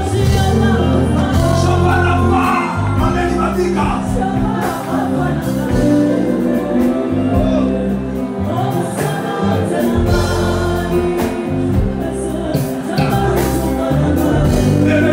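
Live gospel music: a choir singing into microphones, backed by a band with deep bass notes and drums.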